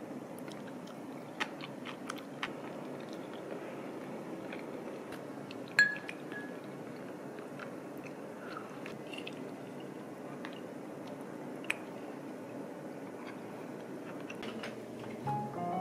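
A person eating: quiet chewing, with a few small clicks of utensils on dishes and one brighter clink against a ceramic dish about six seconds in, over a steady room hiss.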